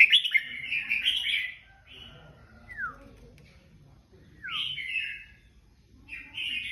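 Red-whiskered bulbuls singing together: three short warbled song phrases, with two quick downward-sliding whistled notes between them.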